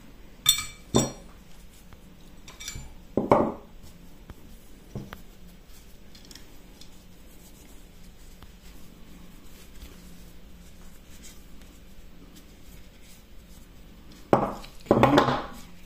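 Steel parts of a Makarov pistol clinking and knocking as they are handled and wiped with a cloth. There are a few sharp metallic clicks in the first seconds, then a long quiet stretch, then a short burst of knocking and cloth rubbing near the end.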